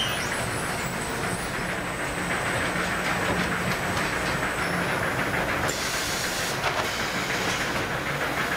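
Automatic bag palletizer running: a steady mechanical rumble and clatter with a low hum, and a brief hiss about six seconds in.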